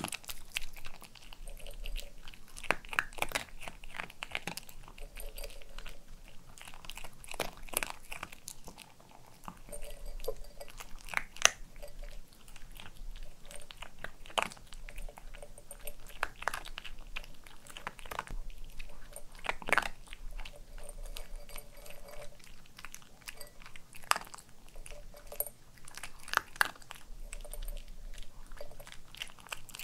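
A white Pomeranian crunching and chewing dry kibble, a run of crisp, irregular crunches.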